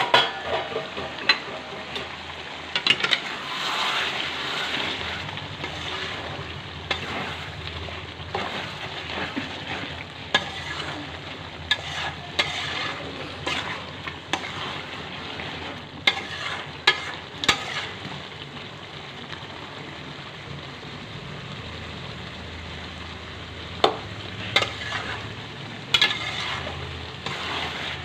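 Chicken curry frying and sizzling in a metal pot as a metal ladle stirs it, clinking and scraping against the pot's side at irregular intervals. The chicken is half cooked and frying down in the oil it has released.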